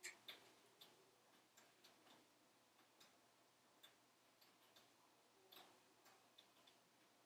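Wood fire burning in a wood stove: faint, irregular crackles and pops, the two sharpest in the first half second.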